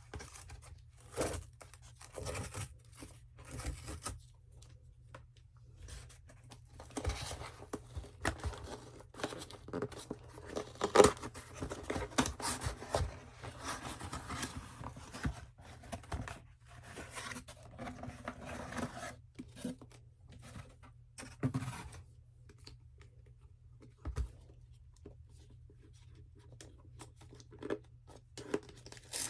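Paper and cardboard packaging of an Apple Watch Series 9 being torn open and handled: irregular tearing, scraping and rustling with sharp taps, thinning out to a few isolated knocks in the last several seconds.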